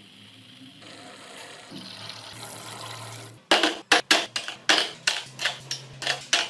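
A soft hiss, then from about halfway a run of sharp knocks on metal parts, irregular, roughly two to three a second.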